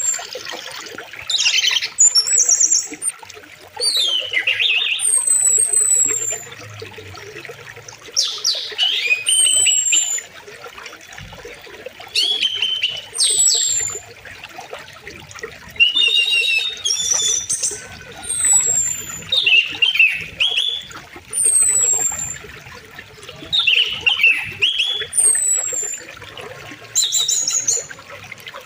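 Songbirds calling over a steadily flowing river: short phrases of chirps and quick high whistles that slide downward, coming every second or two, above a faint, even rush of water.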